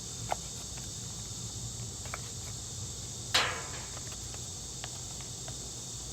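Steady high-pitched chorus of insects chirping without a break, with a few light clicks and one sharp snap about three and a half seconds in.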